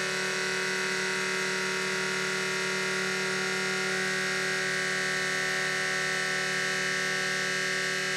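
Electric fuel transfer pump on a diesel transfer tank running steadily, a constant motor hum with several fixed tones, as it pumps diesel through the hose into a jug.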